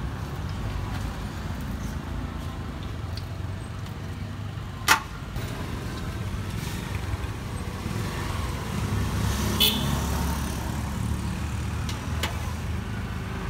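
Street traffic going by as a steady, mostly low-pitched background noise. A single sharp click comes about five seconds in, and a brief higher-pitched sound near ten seconds.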